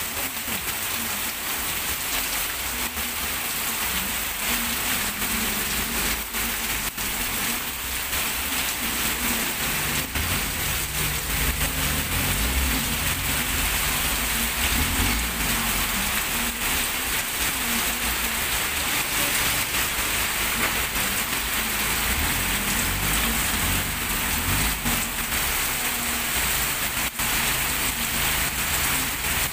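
Heavy rain pouring steadily onto a street. Underneath it, a small pickup truck's engine runs, loudest around the middle.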